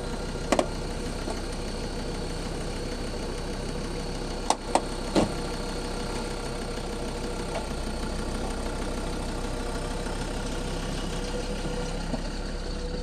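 Vehicle engine idling steadily, heard from inside a car's cabin, with a few sharp clicks or knocks about half a second in and again three times around four to five seconds in.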